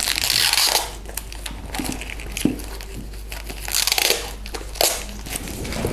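Rustling and rubbing of an elastic head-strap camera mount's fabric straps and plastic buckle being handled, in irregular bursts, loudest in the first second and again about four seconds in.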